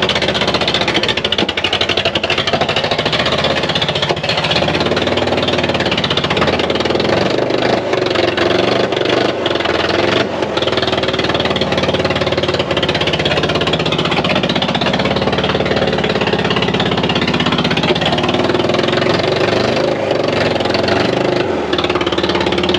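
Ford Ranger pickup's engine running rough under heavy throttle, a loud, fast, uneven rattle of firing pulses that doesn't let up. It is running poorly, which the crew puts down to the engine being short of fuel.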